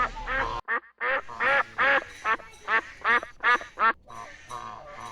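Domestic ducks quacking: a quick run of about nine loud quacks, roughly three a second, after a brief break under a second in.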